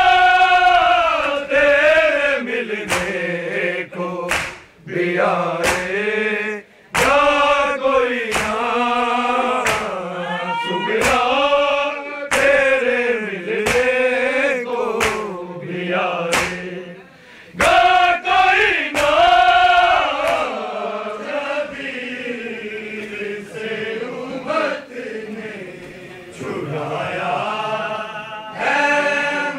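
A group of men chanting an Urdu noha together, a mourning lament in sung phrases of a second or two with brief breaks between them. Sharp slaps recur through the chanting, the hand-on-chest beating of matam.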